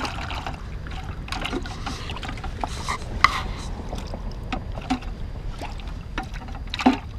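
Steady wind rumble on a body-worn microphone, with jacket fabric rustling against it and scattered clicks and knocks from handling fishing gear. The sharpest click comes about three seconds in.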